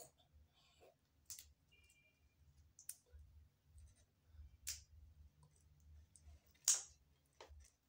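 Long artificial fingernails clicking and tapping against each other: a scatter of short, sharp clicks at irregular intervals, the loudest near the end.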